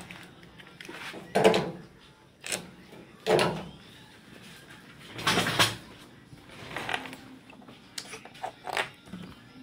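A series of separate knocks and clunks at irregular intervals, each with a short ring, like hard objects being handled and set down on a work surface.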